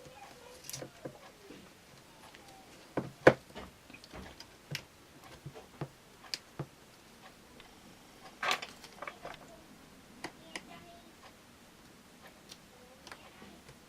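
Scattered light clicks and taps from handling the iPad 2's LCD panel and fitting its ribbon cable into the connector, with a sharper click about three seconds in and another just past the middle.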